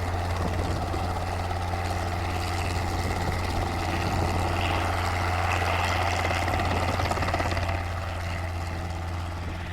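Robinson R22 helicopter's piston engine and rotors running at takeoff, a steady low hum with a wash of rotor and wind noise that swells slightly partway through.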